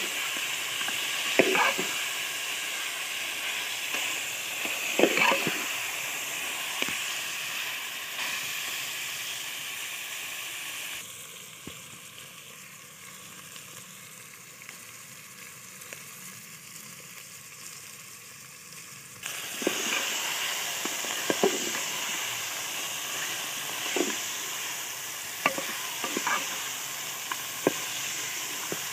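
Mutton sizzling as it is fried in its masala in a metal pot, while a steel ladle stirs it and clinks and scrapes against the pot every few seconds. The sizzle falls away for several seconds in the middle, then comes back with more ladle strikes.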